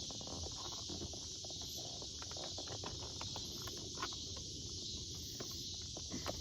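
Plastic door trim panel being handled and worked loose by hand: irregular small clicks and taps, sharpest about four seconds in and near the end, over a steady hiss.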